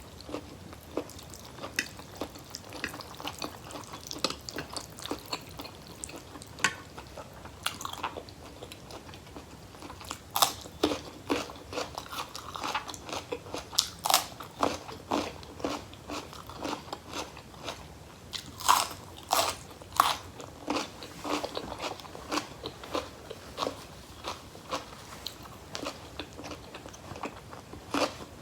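A person biting and chewing crunchy raw vegetables close to the microphone: repeated sharp crunches at an uneven pace, loudest and most frequent from about ten to twenty seconds in.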